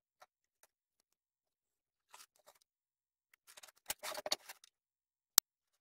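Pencil and metal ruler work on a plywood square: a faint scratch of a pencil line, then the board and ruler being shifted and handled on a wooden workbench, and one sharp tap near the end.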